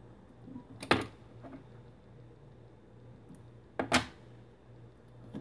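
Two sharp clacks about three seconds apart as fly-tying tools and materials are handled and set down at the vise, over a faint low steady hum.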